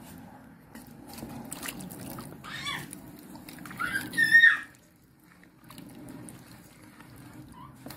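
A wooden spatula stirring thick curry in a steel pot, with sloshing. Two brief, high, wavering sounds cut in, the louder one about four seconds in.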